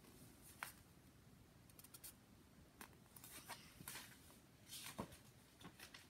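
Faint handling of a paperback book: a handful of brief rustles and light taps as it is held up and turned around in the hands, over near-silent room tone.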